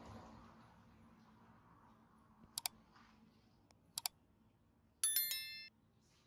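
Two quick double clicks, then a short bright bell-like ring of several high tones that cuts off suddenly.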